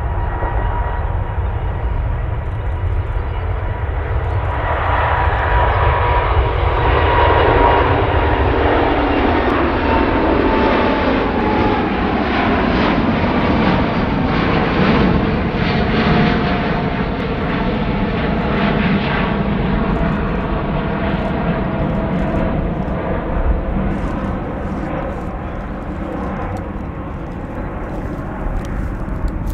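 Airbus A350-941's Rolls-Royce Trent XWB turbofans at takeoff thrust: loud jet engine noise that builds over the first several seconds, with whining tones that slide down in pitch as the aircraft passes, then slowly fades as it climbs away.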